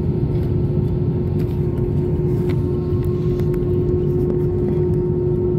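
Cabin noise of an Airbus A320 taxiing: a steady low rumble with a constant hum running through it.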